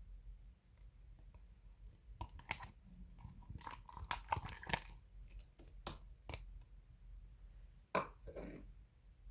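Slime being squished and mixed by hand, giving sharp sticky clicks and crackles that start about two seconds in, with one louder click near the end.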